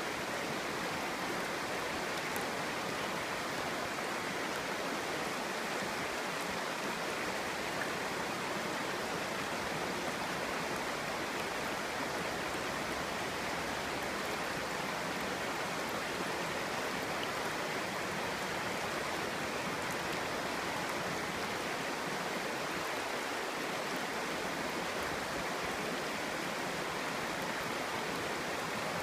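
Clear stream flowing over stones, a steady even babbling and rushing of water.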